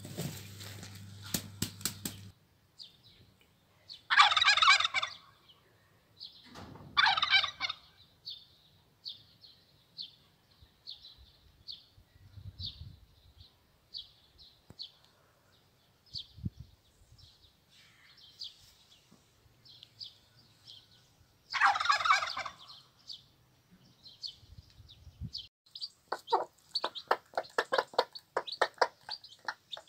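A metal tool scrapes through ash in a clay tandoor for the first two seconds. After that, farmyard fowl give three loud calls about a second long, over a small bird chirping about twice a second. Near the end a hen with chicks clucks rapidly as they feed on grain.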